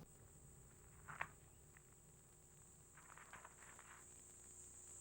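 Faint wildlife ambience with a steady, high insect buzz like crickets. A single soft click comes about a second in, and faint scratching follows around three seconds in.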